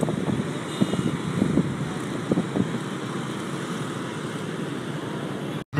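Steady outdoor road-traffic noise, a continuous hum of passing vehicles, that cuts off suddenly just before the end.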